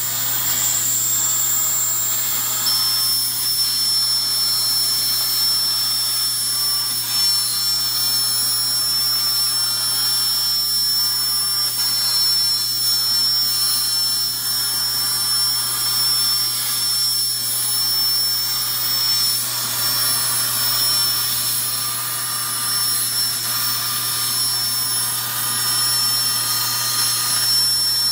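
AKS Accu-Kut CNC plasma table's torch cutting steel plate: the plasma arc gives a loud, steady hiss with a thin high whine, which drops in pitch about three seconds in.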